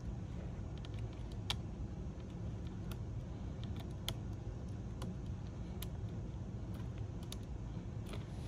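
Scattered small plastic clicks and taps as a spudger works a flex cable and its connectors on a laptop system board, the sharpest about a second and a half in and about four seconds in, over a steady low hum.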